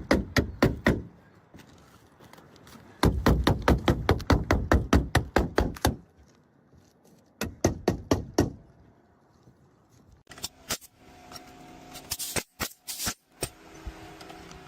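Roof shingles being nailed down: quick runs of sharp strikes, about five a second, in three bursts. In the last few seconds there is a fainter steady hum with a few scattered clicks.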